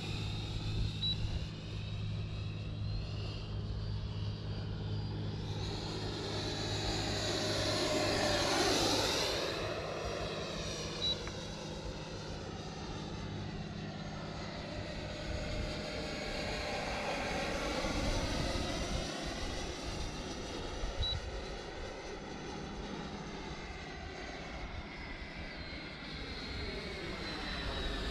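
Wemotec electric ducted fan in a radio-controlled model Viperjet jet, whining as the model flies passes overhead. The whine swells and sweeps up then down in pitch as it goes by, loudest about eight to nine seconds in and again around seventeen seconds.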